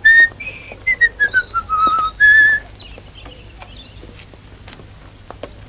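A person whistling a short tune: a held note or two, then a quick run of notes stepping downward, ending on one more held note, after which the whistling stops.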